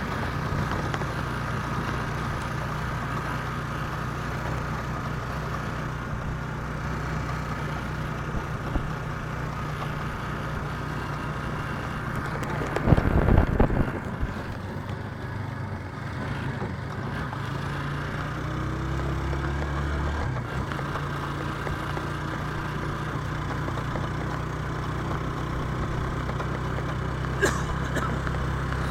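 Engine of a moving road vehicle running steadily, heard from on board with road noise. About halfway through there is a louder rumble lasting a second or so, and a sharp click comes near the end.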